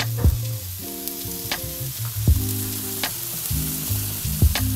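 Meat sizzling on a barbecue grill, a steady hiss, under backing music with a bass line, chords and a drum beat about every three quarters of a second.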